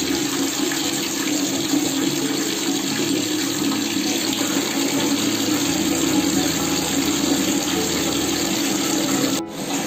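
Water pouring steadily from two wall taps, one plastic and one brass, falling onto a tiled bathroom floor, with a brief break near the end.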